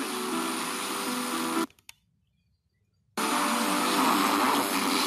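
FM radio receiver hiss between stations during a band scan, with a few faint steady hum tones under it. Partway through it cuts to silence for about a second and a half, as the receiver mutes while changing frequency, then the hiss comes back louder.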